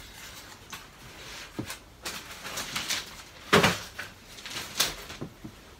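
Rustling and bumping as a helmet is packed into a suitcase, with short knocks and a louder knock about three and a half seconds in.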